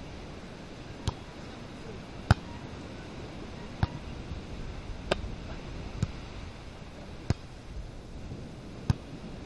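A volleyball being struck by hands during a rally: seven sharp slaps, one every second or so, over a steady background hiss.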